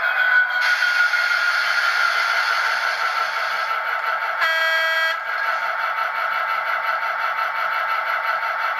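ESU LokSound V4 sound decoder in an HO-scale Class 77 (EMD JT42CWRM) model locomotive playing the EMD diesel engine sound through its small speaker, thin and without bass. A hiss of air sounds from about half a second in to nearly four seconds, and a short horn blast comes about halfway through.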